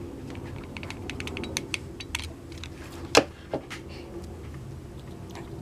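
Light clicks and taps from a hot glue gun and small craft pieces being handled, with one louder click about three seconds in, over a faint steady hum.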